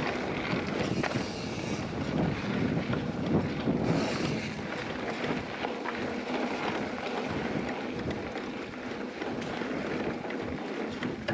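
Wind rushing over the microphone with the rolling noise of a mountain bike on a dirt trail, and scattered clicks and knocks from the bike over the ground.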